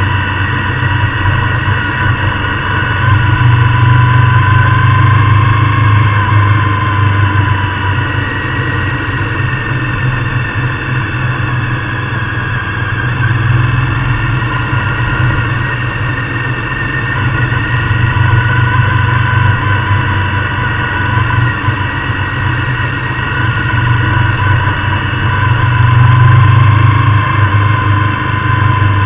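Motorcycle engine running steadily at road speed. Its pitch and loudness swell and ease a few times as the throttle changes through the curves.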